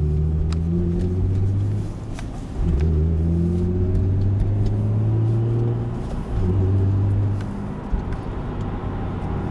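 Car engine under acceleration, a steady low engine note climbing gently in pitch. It breaks off and comes back, as at a gear change, about two seconds in and again about six seconds in. It is heard from inside a moving car.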